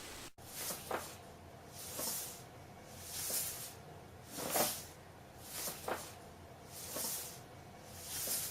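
An animal breathing noisily in a steady rhythm: a hissing breath about every 1.2 seconds.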